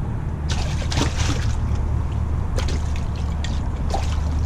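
A small sheepshead splashing and thrashing at the water's surface as it is reeled up alongside a kayak, in several bursts of splashing.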